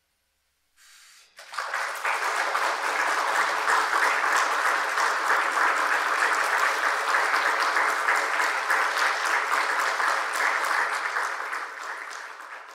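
Audience applauding, starting suddenly about a second and a half in after near silence, holding steady, then fading near the end.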